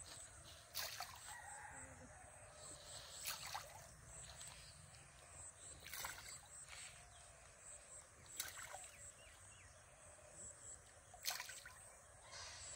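Quiet open-air ambience beside a rural pond, broken by five short sharp sounds about every two and a half seconds, with a faint high chirping in the background.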